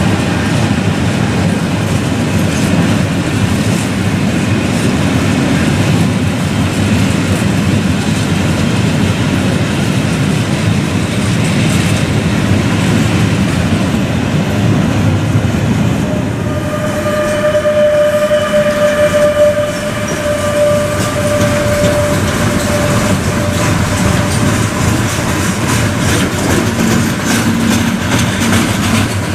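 Freight train rolling past, its wagons rumbling and clattering over the rail joints. About halfway through, a steady high tone sounds for several seconds over the rumble.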